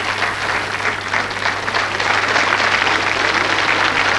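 Studio audience applauding: steady, dense clapping.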